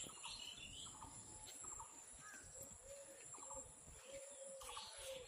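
Faint outdoor ambience with distant birds chirping and calling every second or so, over a thin steady high-pitched tone.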